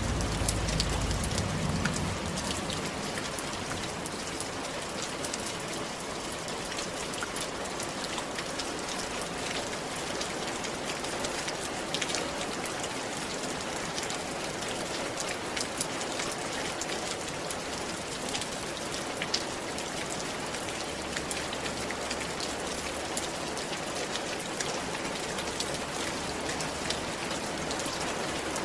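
Steady rain falling on a roof: a dense, even hiss with many individual drops ticking sharply through it. A brief low rumble sits under it in the first couple of seconds.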